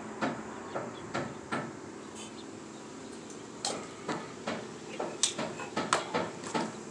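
A series of irregular sharp knocks and clicks, growing busier over the last few seconds, over a steady low background hum.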